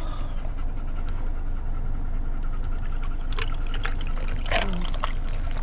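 Cola poured from a plastic bottle over ice into a stainless steel tumbler, trickling, with a few sharp clicks of ice and a brief fizzing hiss about three and a half to five seconds in. A steady low rumble of the car cabin runs underneath.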